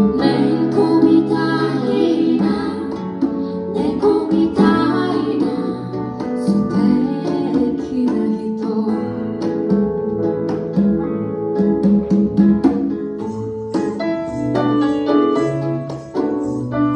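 Live acoustic band playing a song: piano-style keyboard chords, acoustic guitar and congas, with a woman singing.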